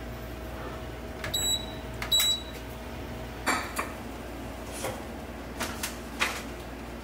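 Toshiba countertop toaster oven: two short high electronic beeps about a second apart as its buttons are pressed, followed by several sharp clicks and knocks.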